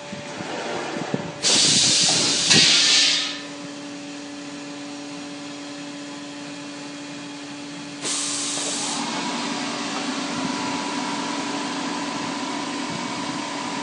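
Small semi-automatic plastic thermoforming machine working through a forming cycle. A loud hiss of air comes about a second and a half in and lasts about two seconds, then gives way to a steady hum. A second, shorter air hiss comes about eight seconds in.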